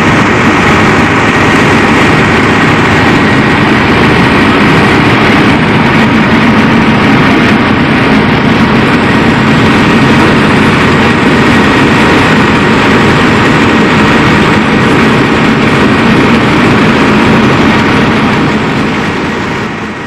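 Preet 6549 4WD tractor's diesel engine running steadily under load, driving a paddy-husking rice mill, with the mill's steady running noise mixed in. The sound fades out near the end.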